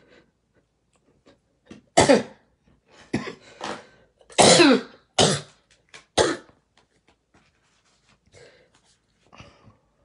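A hoarse woman's coughing fit: about six coughs between two and six and a half seconds in, the longest and strongest about four and a half seconds in, then a couple of faint coughs or throat-clearings near the end.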